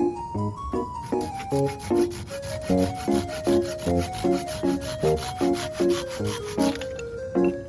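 Background music: a light tune of short keyboard-like notes over a bass line, with a fast, even scratchy rhythm joining about a second in and stopping about a second before the end.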